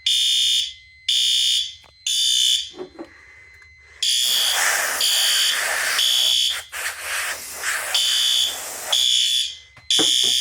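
Fire alarm horns sounding in alarm after a smoke detector has been tripped: high-pitched electronic blasts, about one a second. About four seconds in, a harsher, noisier sound joins them for some five seconds.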